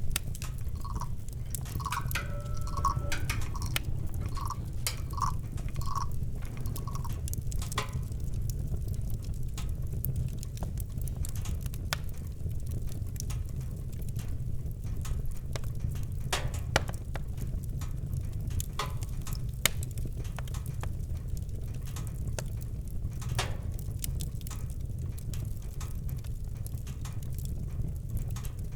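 Campfire crackling with scattered sharp pops over a steady low rumble. A run of short, evenly repeated mid-pitched call notes sounds through the first seven seconds or so.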